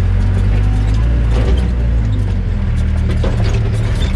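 Excavator's diesel engine running steadily, heard from inside the operator's cab, with a few short mechanical clicks and knocks, the clearest about three seconds in.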